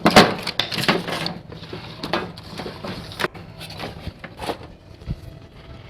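Rummaging through shop items: a burst of rustling and clattering, then scattered sharp clicks and knocks, the loudest about three seconds in.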